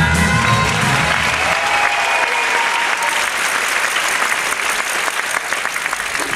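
Rock'n'roll dance music ends about a second and a half in, giving way to steady audience applause.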